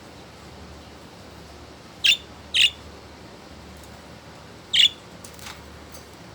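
Budgerigars giving three short, sharp calls, two close together about two seconds in and a third near five seconds, followed by a few faint chirps, over a steady background hiss.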